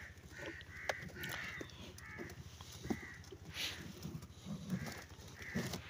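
Crows cawing over and over, short calls repeated every second or so, fairly faint. A few light knocks are heard among the calls.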